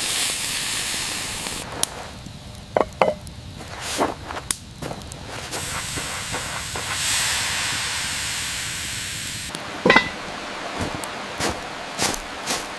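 Food sizzling on a hot cooking surface, a steady hiss that eases a little a couple of seconds in and swells again in the middle. Several short knocks and clicks of utensils come through it, the loudest about ten seconds in.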